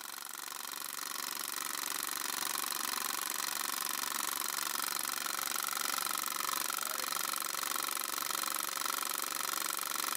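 Vintage film projector sound effect: a steady mechanical whirr and clatter with hiss, fading in over the first couple of seconds and then running evenly.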